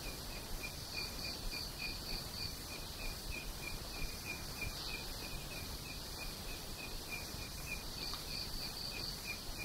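Crickets chirping in a steady pulsing rhythm over a constant hiss, with a second, higher chirping joining in twice.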